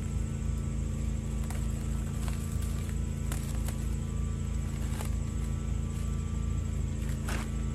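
Plastic cling wrap crackling in short bursts as it is pulled and cut off a foam-filled target, over a steady low background hum.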